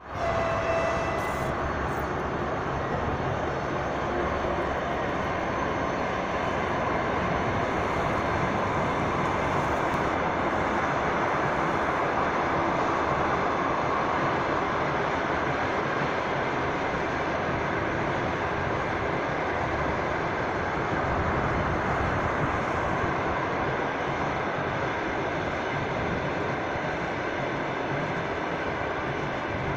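Long passenger train of Russian Railways coaches running past at a distance: a steady rumble of the coaches' wheels on the rails, mixed with road traffic.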